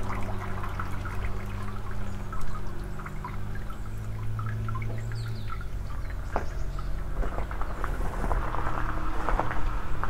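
Water trickling and splashing, over a steady low mechanical hum that shifts pitch about five and a half seconds in.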